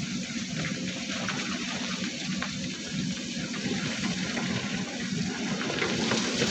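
Heavy diesel machinery at a sand quarry running steadily, a low engine rumble, with a continuous rushing, splashing noise and scattered small ticks over it.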